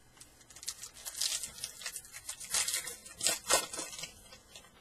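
Foil wrapper of a Topps Fire baseball card pack being torn open and crinkled: bursts of sharp crackling rips, strongest about a second in and again around three seconds in.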